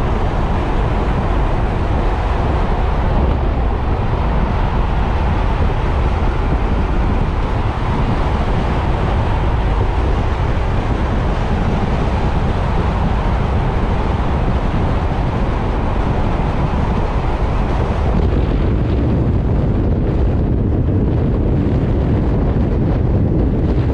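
Wind rushing over the microphone while riding an electric motorcycle at highway speed, with tyre and road noise and no engine sound: a steady, loud rush whose hiss thins out about three quarters of the way through.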